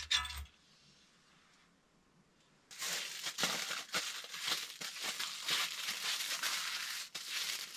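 Aluminium foil crinkling and rustling as it is handled by hand, a dense crackle lasting about five seconds from near the middle on. A short knock comes right at the start.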